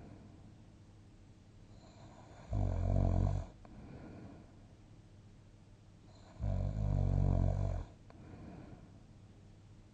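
Snoring in deep sleep: two long, low snores about four seconds apart, each about a second long and followed by a softer breath.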